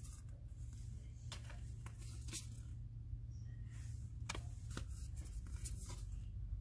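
Thick vintage postcards being handled and shuffled by hand: a few short, crisp rustles and card-edge flicks spaced about a second apart, over a steady low hum.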